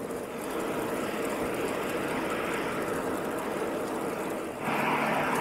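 Steady road noise from a bicycle ride along a main road: a hiss of wind and tyres with motor traffic. The sound shifts suddenly to a louder, brighter hiss near the end.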